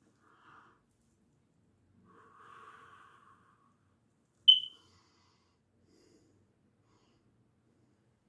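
Faint breaths drawn through a black leather-gloved hand held over the mouth: a short one, then a longer drawn breath about two seconds in. About four and a half seconds in comes a single sharp, brief, high-pitched squeak, the loudest sound.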